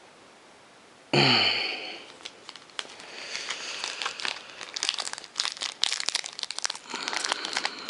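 A trading-card pack wrapper being crinkled and worked open by hand: dense, irregular crackling and rustling that builds from about two seconds in, after a short loud rush of noise about a second in.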